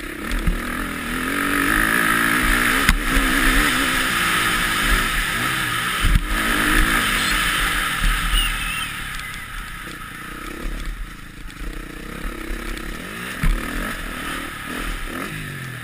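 Motocross bike engine revving up and down as it is ridden hard, heard from an on-board camera with heavy wind rush on the microphone. A few sharp knocks come through, and the engine eases off for a couple of seconds past the middle before picking up again.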